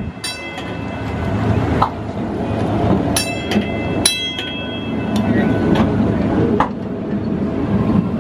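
1951 St. Louis Car Co. PCC streetcar rolling past close by, a steady low rumble on the rails. Brief sharp high-pitched ringing sounds come near the start, about three seconds in and about four seconds in, with two short clanks near two and six and a half seconds.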